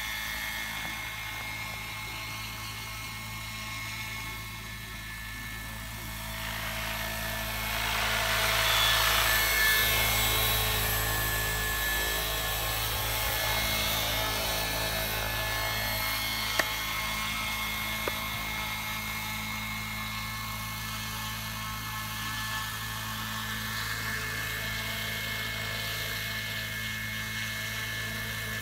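Vario Schweizer 300C scale model helicopter flying low, its drivetrain giving a steady high whine over the rotor noise. The sound swells louder about eight to ten seconds in, and a single sharp click comes about sixteen seconds in.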